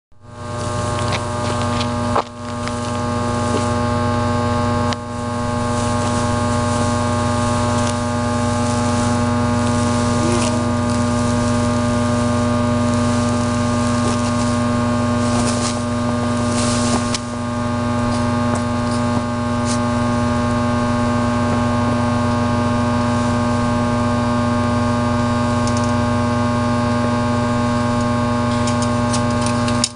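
Steady electrical hum of substation transformers: a low buzz with many evenly spaced overtones. It dips briefly about two and five seconds in.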